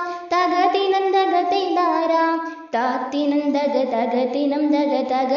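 A high voice singing a Malayalam folk-song (nadanpattu) melody. The tune steps down to a lower phrase about halfway through.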